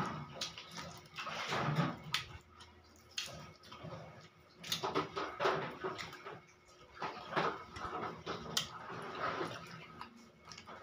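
Close-up eating sounds: wet chewing, smacking and slurping as a large prawn is peeled and bitten into, with irregular short clicks and crackles from handling the shell.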